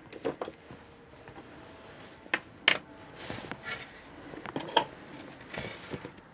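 Small objects being picked up and set down on a wooden desk: a series of sharp clicks and knocks, the loudest a little before the middle, with a couple of brief rustles between.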